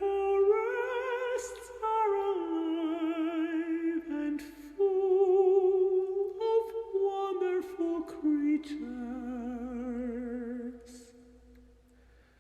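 A high voice sings a slow, wordless melody with vibrato on its long held notes, then fades out near the end. A few short clicks sound over it.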